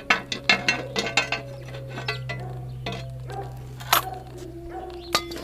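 Metal parts of a string-trimmer head clinking and clicking as the spin-head assembly is worked out by hand: a quick run of clicks in the first second and a half, then two single knocks later on.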